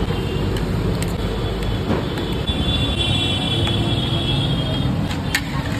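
Steady street traffic noise with a low rumble, and a few sharp clicks or knocks, one about a second in and one near the end.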